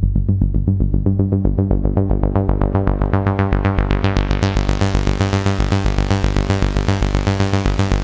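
Clavia Nord Micro Modular synthesizer playing its 'Machiner' patch: a rapid, machine-like sequenced pattern of repeated pitched notes over a pulsing bass. The sound grows steadily brighter over the first four seconds as a knob on the synth is turned.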